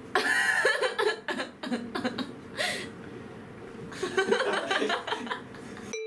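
A young woman laughing hard in repeated bursts, easing off about halfway through before a second round of laughter. A single chime note starts right at the end.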